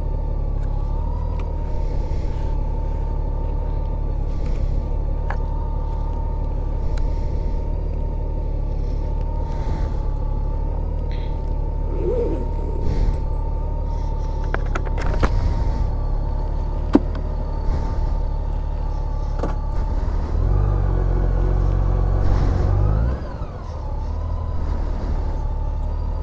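Honda Gold Wing motorcycle engine running steadily at low speed with a low rumble. About 20 seconds in, the rumble grows louder for a couple of seconds, then drops back.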